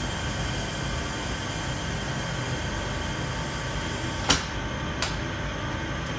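Paint spraying onto a brake part, a steady hiss with two sharp knocks about four and five seconds in, then dying away at the end.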